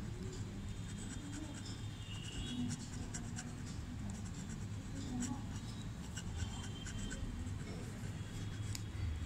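Metal pen nib scratching across paper in quick, irregular short strokes as hatching lines are inked in, over a low steady background hum.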